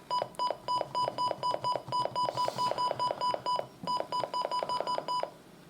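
Electronic alert beeping from a Midland WR300 weather radio: a rapid run of short, identical high beeps, about five a second. The beeps break off briefly partway through, start again, and stop near the end.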